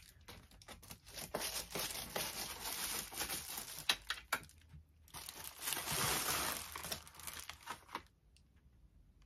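A parcel's packaging being cut and torn open with scissors, crinkling and crackling with small clicks as it is handled. The crinkling stops about eight seconds in.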